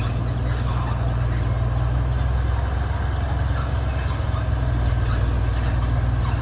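Heavy diesel engine running steadily with a low drone, with a few short hissing clicks in the second half.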